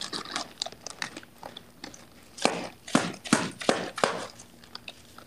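Ice crunching and crackling as a plate of ice is pressed hard against the belly: a run of short, sharp crackles, with about five louder crunches in the middle.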